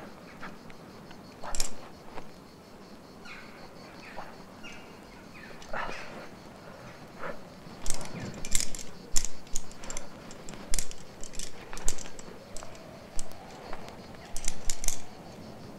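Irregular sharp clicks and taps of a rock climber at work: hands and shoes on the limestone and his climbing gear knocking. A few scattered at first, then coming thick and fast in the second half.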